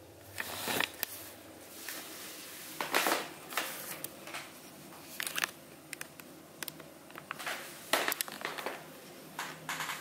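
Irregular crinkling and rustling handling noises: a string of short crackles of uneven strength, loudest about half a second in, around three seconds in and about eight seconds in.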